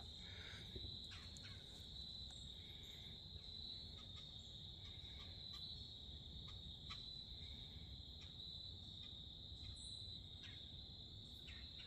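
Faint, steady, high-pitched chirring of insects, with a few scattered faint ticks.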